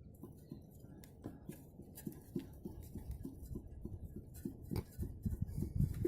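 Ford Mondeo Mk4 exhaust knocking at the muffler's rubber hanger: a run of short, dull knocks, about three a second, growing louder after about five seconds.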